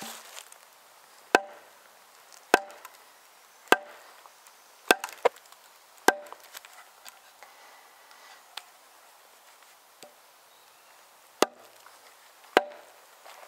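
Oak maul striking the back of an axe head wedged into the end of a green ash log, driving it in to cleave the log. Sharp knocks about a second apart, then a pause of about five seconds, then two more blows near the end.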